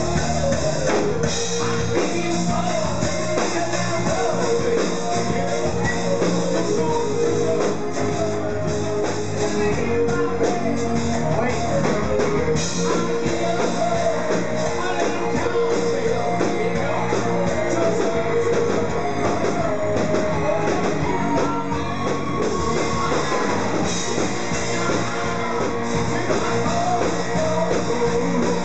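Live rock band playing a song, with electric guitars and a sung vocal line.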